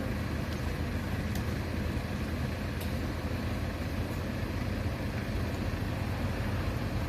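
Wind blowing across the microphone: a steady low rumble with an even hiss above it.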